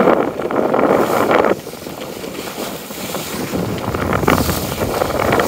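Wind buffeting the microphone on a sailing yacht under sail. It is loud at first, drops suddenly about a second and a half in, then builds again in gusts.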